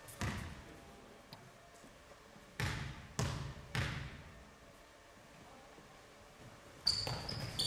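A basketball bouncing on the court floor: one bounce, then, after a pause, three bounces about half a second apart in a dribbling rhythm. Short high squeaks near the end, typical of basketball shoes on the court.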